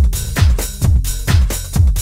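Background music with a steady, punchy kick-drum beat, a little over two beats a second.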